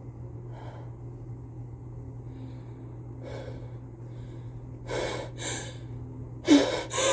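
A person with a cold breathing and then gasping in sharply, twice near the end: the catching inhales that build up to a sneeze.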